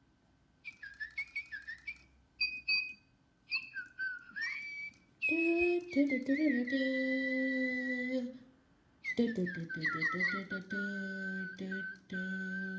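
Little Live Pets Tweet Talking toy birds chirping and singing through their small speakers: a run of quick electronic tweets, then two longer whistle-like, tune-like passages.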